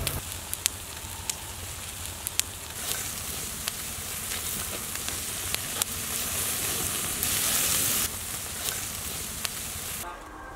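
Whole chickens sizzling on a wire grill over glowing charcoal: a steady hiss with scattered sharp crackles. The hiss swells for about a second two-thirds of the way in, then cuts off suddenly near the end.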